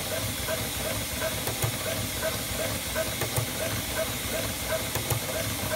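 Flatbed cutting plotter working, its knife head tracing cuts across a sheet: a steady airy hiss with short, regular chirps about three times a second.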